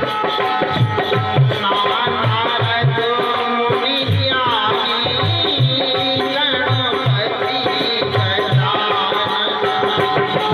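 Bundeli folk devotional music: a hand drum keeps a steady beat under a gliding melody, with a shaker-like rattle.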